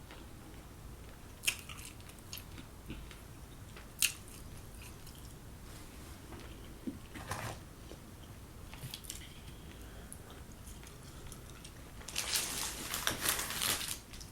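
Close-up chewing and biting of a Wendy's chicken wrap, with a few sharp mouth clicks and soft crackles. Near the end comes a louder crunchy crackle lasting about two seconds.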